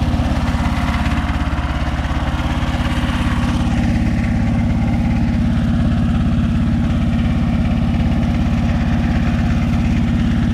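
Konma MT-S411D rice harvester (thresher) running steadily, its small engine and threshing mechanism turning over in an even rhythm. The machine is being run to find an abnormal noise that appeared during threshing.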